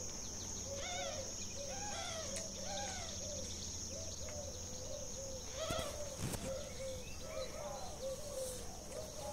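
Capybara giving a long series of short calls, about two or three a second, each rising and falling in pitch. A steady high insect drone runs underneath.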